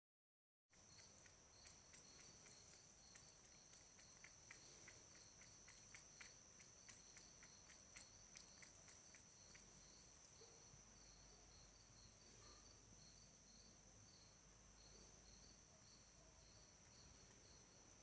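A cat lapping water: a run of faint, quick wet clicks, about three a second, for several seconds before fading out. A steady high-pitched trill runs underneath.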